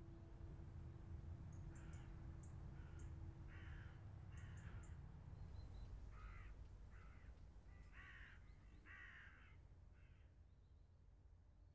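Faint harsh bird calls, about nine short calls in an irregular series, over a low rumble that fades away near the end.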